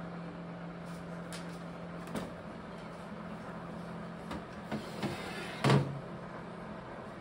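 A few light knocks and clicks of objects being handled, the loudest a short clatter a little past halfway, over a steady low hum.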